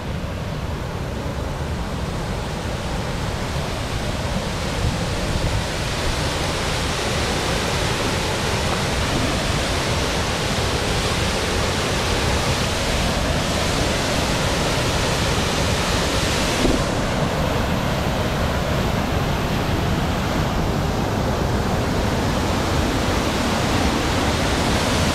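Steady rushing roar of a waterfall and its rapids, growing louder over the first several seconds and then holding level.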